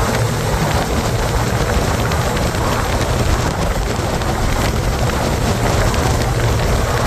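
Steady, loud wind rush on the microphone from a motorcycle riding at road speed, with engine and road noise underneath.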